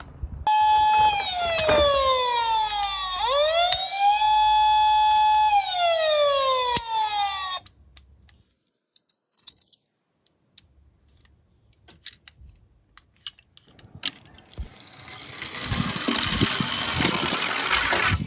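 Emergency-vehicle wail siren sound effect: a tone that holds, falls, sweeps back up, holds and falls again, cutting off suddenly about seven and a half seconds in. After a near-silent stretch with a few faint clicks, a rushing noise swells up near the end.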